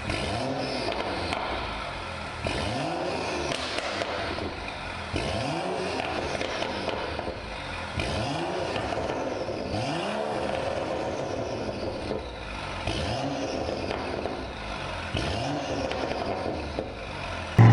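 Performance car exhaust revved in repeated short blips, about one every two and a half seconds, each rising in pitch and falling back, with crackling and popping on the overrun between them. A loud low bang comes near the very end.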